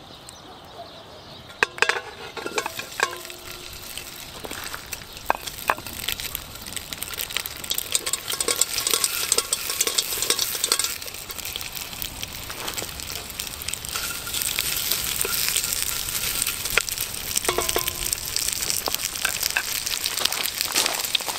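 Cubes of pork fat sizzling in a hot metal cauldron over a wood fire, the hiss growing louder as the fat heats. A few sharp metallic clinks with a short ring, about two seconds in and again near the end, as pieces and the hand knock against the pot.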